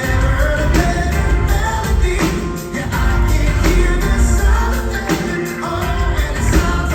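Pop-gospel band music with singing over heavy bass and a steady drum beat.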